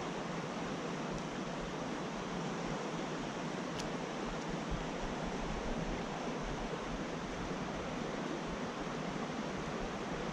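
Shallow creek water rushing steadily over riffles and rocks.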